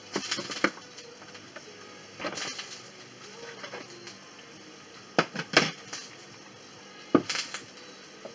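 Clicks and knocks of a kitchen robot's lid being unlocked and lifted off, then its stainless steel mixing bowl being lifted out and set down on the counter. A handful of sharp clatters, the loudest about five to seven seconds in.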